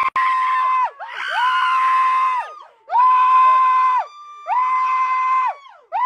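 A person screaming over and over: about four long, high screams, each held at one steady pitch for roughly a second, with short gaps for breath between them.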